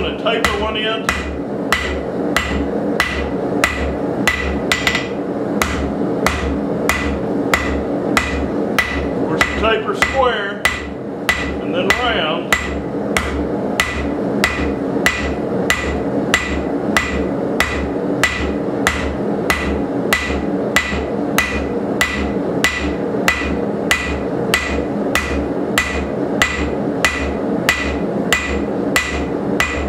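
Hand hammer blows on red-hot coil-spring steel over an anvil, a steady rhythm of about three blows every two seconds, each with a short metallic ring. The steel is being drawn out into a punch. A steady hum runs underneath.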